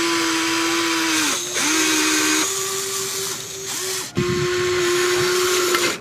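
Small electric gear motors of a toy RC excavator whining steadily, breaking off and restarting at slightly different pitches several times as the arm and tracks start and stop. A brief low thump comes about four seconds in.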